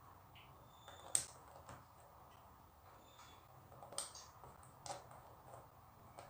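Small plastic Lego cheese slopes clicking as they are picked from a loose pile and pressed onto a plastic baseplate: a few sharp separate clicks, the loudest about a second in and more near four and five seconds.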